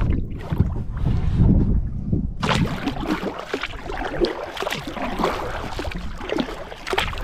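Wind rumbling on the microphone for the first couple of seconds, then water splashing and lapping against a kayak's hull as it is paddled.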